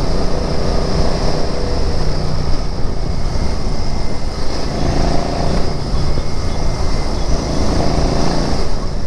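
Royal Enfield Interceptor 650's 648 cc parallel-twin engine running continuously while under way in city traffic.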